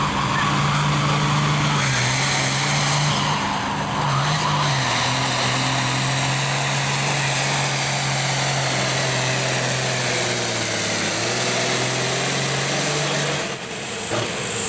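International Harvester hot-farm pulling tractor's engine running hard under load as it drags a pulling sled, a steady drone that sags in pitch about ten seconds in, then drops away near the end. A high whine sweeps down as the engine comes off throttle.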